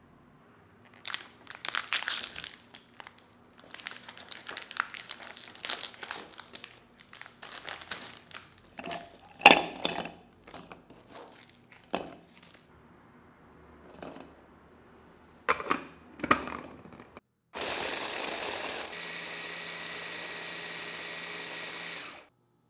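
Plastic cookie wrappers crinkling and tearing as Oreo packs are opened, then cookies clicking as they are dropped into a plastic food processor bowl. Near the end, the food processor motor runs steadily for about four and a half seconds, grinding the cookies into crumbs.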